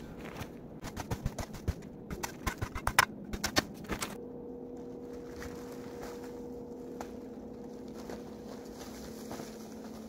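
A small spade striking and scraping at frozen earth and branches, a quick irregular run of sharp knocks that stops about four seconds in. After it a quiet steady hum with two even tones continues.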